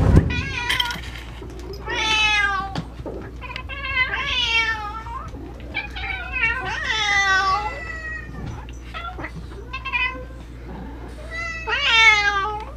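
Domestic cats meowing over and over, one call every second or two, some short and some drawn out with a bending pitch.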